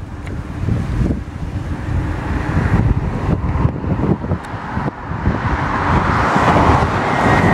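Wind buffeting the microphone in low, gusty rumbles. From about five seconds in, a road vehicle approaches, its rushing tyre noise rising to its loudest near the end.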